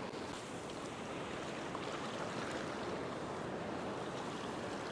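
Ocean surf: waves breaking and washing in shallow water, a steady rush of water noise.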